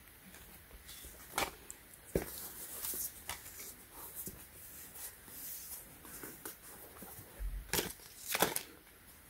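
Handling noise from a leather boot and its cardboard hang tags being turned over in the hands, with tissue paper rustling: scattered soft rustles and a few sharp taps, the loudest pair near the end.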